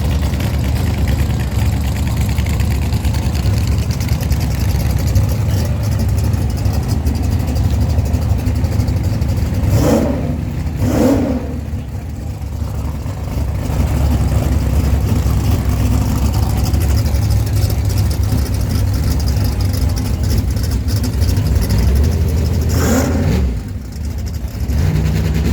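Loud, steady pickup-truck engine sound under power, with brief sharp bursts about ten and eleven seconds in and again near the end, each followed by a short dip in loudness.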